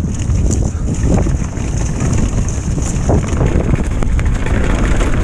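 Retro downhill mountain bike rolling fast down a leaf-covered dirt trail: a steady low rumble of tyres and bike over the ground, mixed with wind buffeting the microphone.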